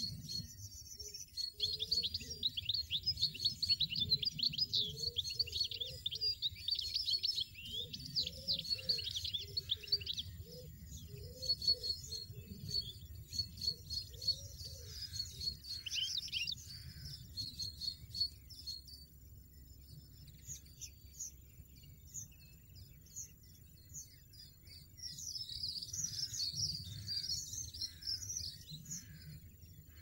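European goldfinches chirping: rapid high-pitched twittering, dense through the first half, thinning out around the middle and picking up again near the end.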